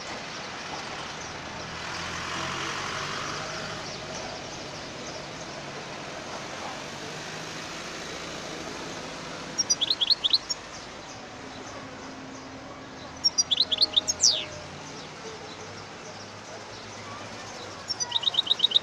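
European goldfinch giving three short bursts of rapid, high twittering notes: about halfway through, a few seconds later, and again right at the end. The middle burst ends in a falling slur.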